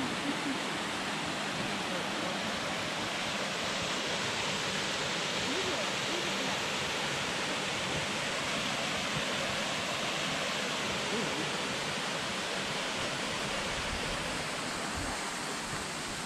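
Steady rush of a rocky mountain stream and its small waterfall, an even hiss of falling water that eases slightly near the end.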